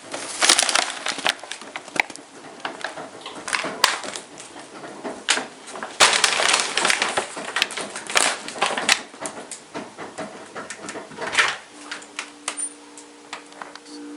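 Irregular crinkling and rustling with sharp clicks, from things being handled during laundry: washing bags and household items. Near the end a steady low hum of two notes sets in and holds.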